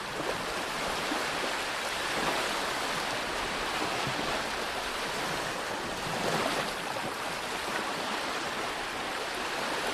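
Sea surf: a steady rush of waves washing in.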